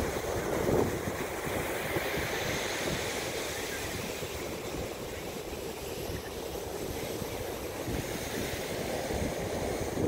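Big ocean waves breaking on the beach: a continuous rush of surf, slightly louder in the first second.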